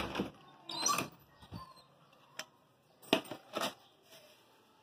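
Handling noise of objects being moved about: a sharp knock at the start, a short rattling clatter about a second in, and two more knocks a little after three seconds.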